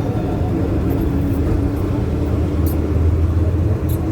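Mini bus heard from inside the cabin while driving: a steady engine drone over heavy road rumble, with a couple of brief rattles near the end.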